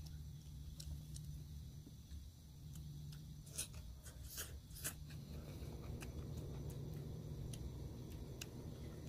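Cooking utensil clicking and scraping against a frying pan: scattered light clicks, with three sharper ones close together near the middle, over a steady low hum.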